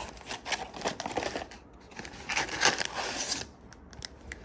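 Plastic packaging of trading-card packs crinkling and rustling as it is handled, with small irregular clicks and taps, and a louder stretch of rustling in the middle.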